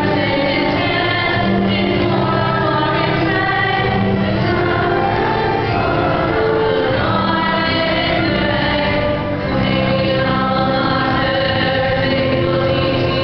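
A choir singing a hymn over steady, held low notes of accompaniment.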